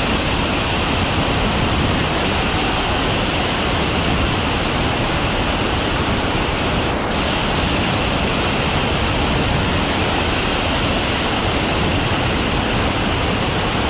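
A big waterfall heard up close: a loud, steady rush of falling water.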